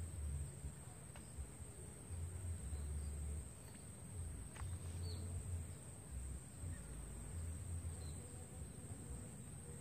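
Steady high-pitched chirring of insects in mangrove scrub, over an uneven low rumble, with a few faint short chirps.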